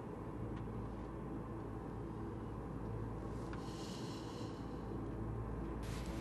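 A low steady hum under a faint hiss, with a brief soft rush of higher hiss about three and a half seconds in.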